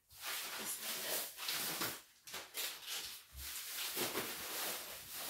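Rustling and light knocks of things being handled and moved about, a dense run of small scrapes and clicks.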